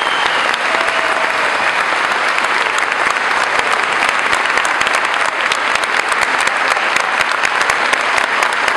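Large crowd applauding: dense, overlapping hand claps that hold steady throughout.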